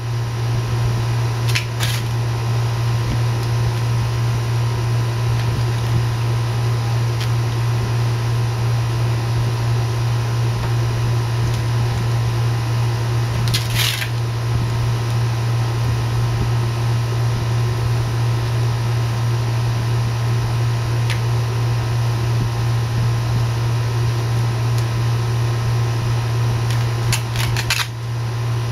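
Steady low hum, like a running fan or machine, with a few short rustles: about two seconds in, around the middle, and twice near the end.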